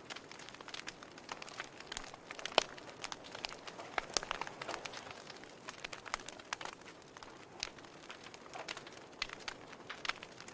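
Wood fire burning in a fireplace: irregular crackles and pops over a soft hiss, with one sharp pop about two and a half seconds in.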